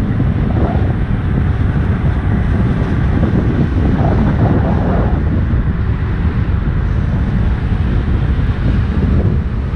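Wind buffeting the microphone of a camera moving at road-cycling speed: a loud, steady rumbling rush with no break.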